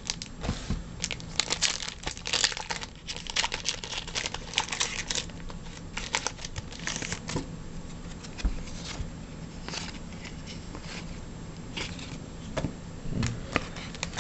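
Foil baseball card pack wrappers crinkling and tearing as packs are opened, in an irregular run of crackles that is busiest in the first half and thins out later.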